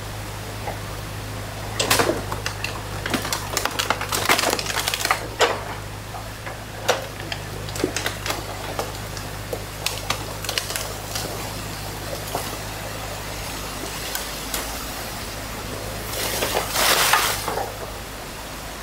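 A New Holland mini excavator's engine running steadily while its bucket tears into a beaver dam, with sticks and branches cracking and snapping in clusters. The loudest crunching comes near the end.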